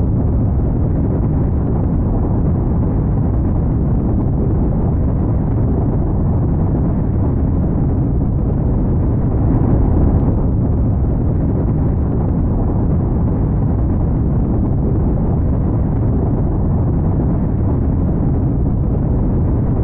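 Steady, loud, low rumbling noise, a sustained rumble sound effect, swelling slightly about halfway through.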